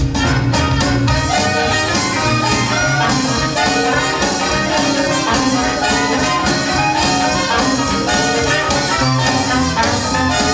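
Lively band music with brass and a steady beat, accompanying a juggling act.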